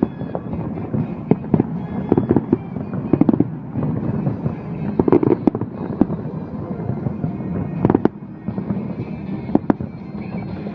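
Fireworks display: a dense run of bangs and crackling shells, with two sharp, loud reports about 8 and 9.5 seconds in.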